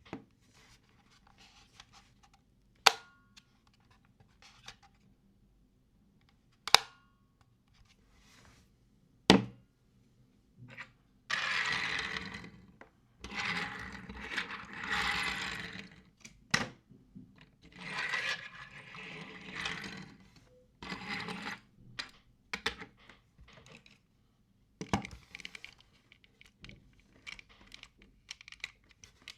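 Three sharp knocks a few seconds apart, then longer stretches of rustling and scraping, with a few more knocks near the end: handling noises made close to a microphone during a noise test.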